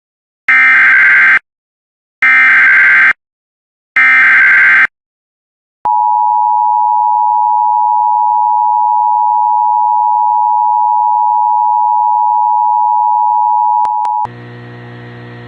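Emergency Alert System activation: three roughly one-second bursts of the SAME digital header's warbling data tones, then the steady two-tone EAS attention signal for about eight seconds, which cuts off about 14 s in, leaving a quieter low hum.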